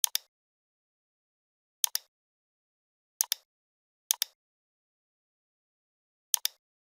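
Computer mouse button clicked five times at irregular intervals, each click a quick double tick of press and release, with dead silence between.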